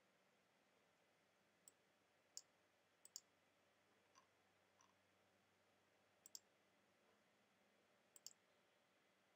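Near silence with a handful of faint, sharp clicks, several in quick pairs, scattered a few seconds apart.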